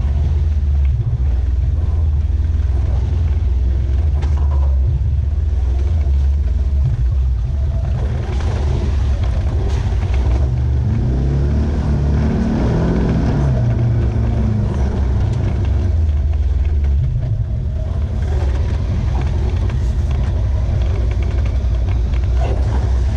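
Off-road vehicle engine running with a steady low rumble, revving up and back down about halfway through.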